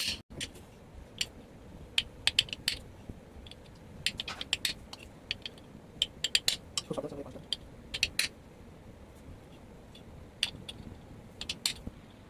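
Irregular sharp metallic taps and clinks, several in quick clusters, from small tools striking and handling the metal cover and bearing parts of a ceiling fan during reassembly.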